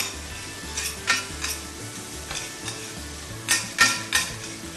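Metal spoon stirring and scraping onions around a stainless steel frying pan, with sharp irregular clinks against the pan, over the sizzle of the onions caramelizing in oil and butter.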